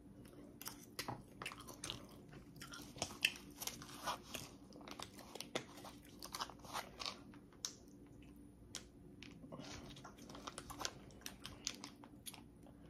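A person chewing and crunching food, with many small irregular crisp clicks and crackles.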